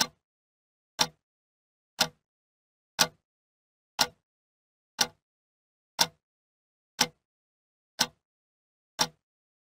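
A clock ticking, one sharp tick each second, with silence between the ticks.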